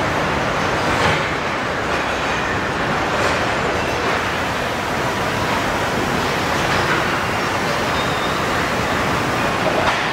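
Steady mechanical din of a car assembly line, with a few light clanks about a second and about three seconds in.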